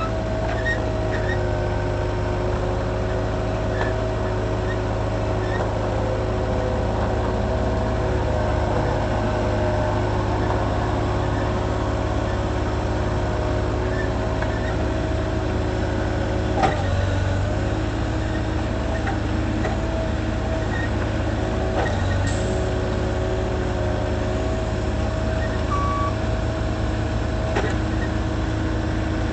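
Moffett truck-mounted forklift's engine running steadily under the driver's seat, with a steady whine over it and a few short knocks, the loudest about halfway through.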